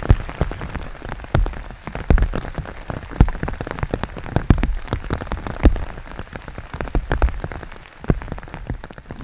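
Rain falling, with heavy drops striking a surface close to the microphone in quick, irregular, sharp taps over a steady patter.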